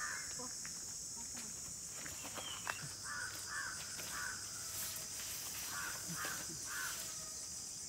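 Birds calling in short groups of two or three calls over a steady high-pitched insect drone, with a few light clicks and knocks, one sharper just before the middle.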